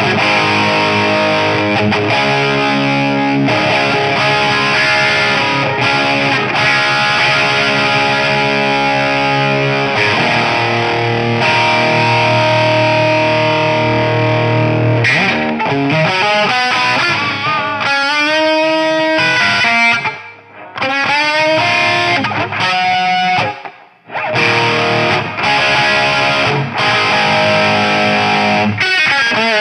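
Electric guitar played through a Mojotone British 800 kit amp, a JCM800-style 50-watt tube amp, with heavy distortion. Held chords ring out, then a lead passage of bent notes with vibrato follows, broken by two short pauses, before the chords return.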